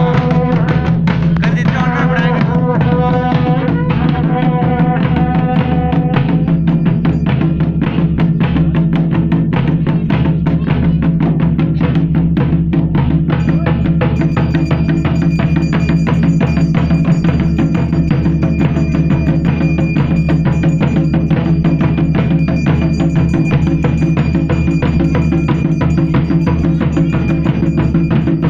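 Double-headed barrel drums (dhol) beaten in a fast, continuous folk rhythm, with a pitched melody over the drumming for the first several seconds and a steady high tone joining about halfway.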